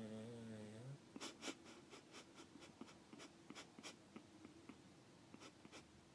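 Sleeping dog snoring: a buzzy, wavering snore lasting about a second, then a run of faint, irregular soft clicks, a few a second, until the next breath.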